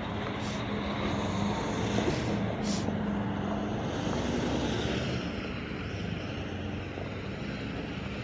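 Diesel locomotive engine running with a steady low hum, growing a little louder and then fading over the last few seconds.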